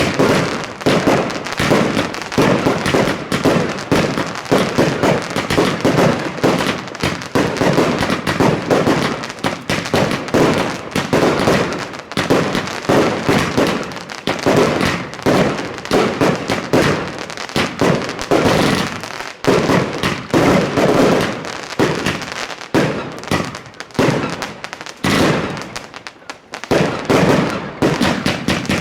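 New Year's Eve fireworks going off in rapid succession, dense overlapping bangs and crackling with hardly a gap, easing off briefly a few seconds before the end.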